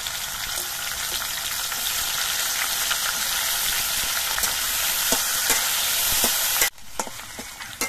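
Okra frying in hot mustard oil in a kadai: a loud, steady sizzle with a few spatula clicks against the pan. The sizzle drops off suddenly near the end to a quieter sizzle.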